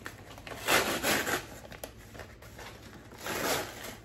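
Brown kraft paper wrapped around a potted plant being pulled open and torn, with two louder bursts of tearing and rustling, about a second in and again near the end.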